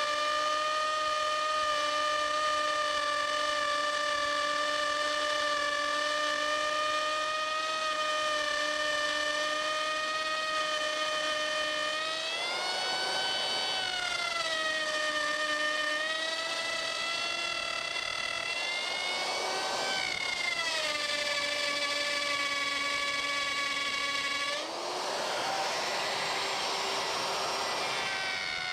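Handheld electric router running with a steady high whine. The pitch sags and a rush of cutting noise comes in as the bearing-guided trim bit bites into the workpiece: briefly about twelve seconds in, again around nineteen seconds, and longest from about twenty-four seconds until near the end, where the motor slows under the load.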